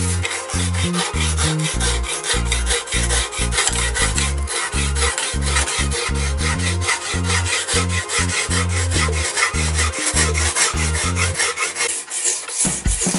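Dry, rasping strokes of an abrasive-faced wooden sharpening block rubbed quickly back and forth along a steel kitchen knife's edge, several strokes a second, sharpening the blade.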